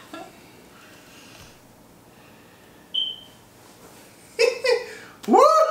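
Quiet room tone, broken by one short high beep about three seconds in. Near the end come laughs: two short bursts, then a louder laugh that rises and falls in pitch.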